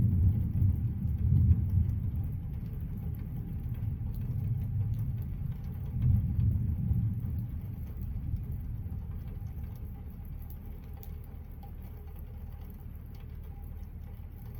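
Thunder from a passing storm: a low rumble that breaks suddenly, rolls on with a second swell about six seconds in, then dies away.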